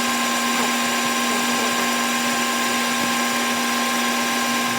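Chinese-made metal lathe running at 755 RPM, turning a backhoe bucket pin with a 15-thousandths depth of cut: a steady whine with several held tones over an even hiss.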